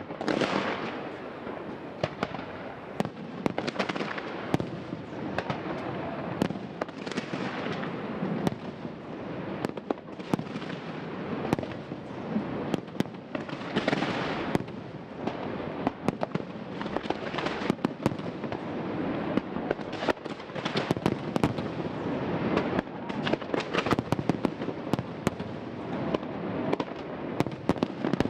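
Aerial fireworks display: a continuous run of shell bursts with bangs, crackle and hissing swells. The sharp reports come thick and fast in the last third.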